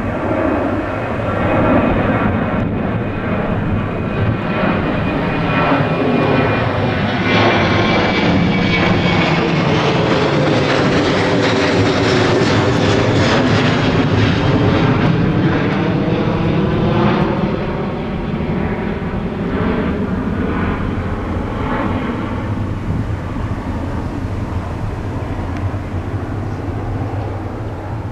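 Boeing 737-800's twin CFM56-7B turbofan engines at climb thrust as the jet passes overhead after takeoff. The jet roar swells to its loudest about halfway through, with a high fan whine sliding down in pitch and a sweeping, phasing sound as it passes, then fades as the aircraft climbs away.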